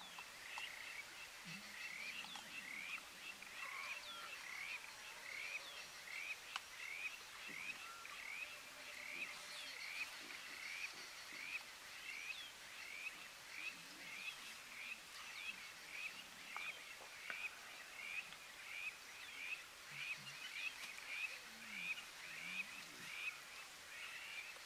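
Short chirping animal calls repeated steadily, about one and a half a second, keeping on through the whole stretch.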